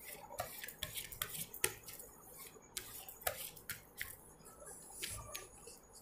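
Tarot cards being handled as one more card is drawn from the deck: an irregular string of light clicks, snaps and brief rustles of card stock.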